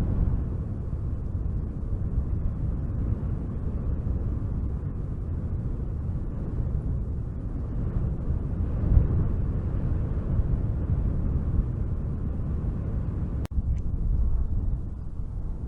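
Wind blowing in a low, steady rumble that swells and eases in gusts. About 13 seconds in there is a single click with a momentary dropout, like a splice in the recording.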